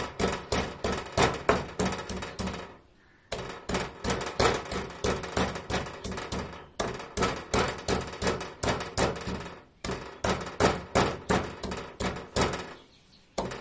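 Fresh ginger being pounded by hand with a pestle: rapid repeated thuds, about four a second, with a short pause twice.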